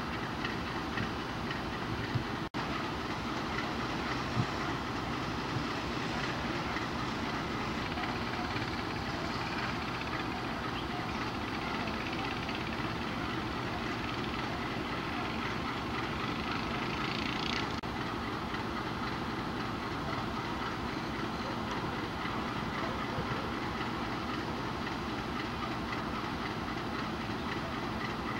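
An EMD G12 diesel locomotive's twelve-cylinder two-stroke engine running as it moves along the rails, with a steady rumble and some wheel clatter. The sound cuts out for an instant about two and a half seconds in.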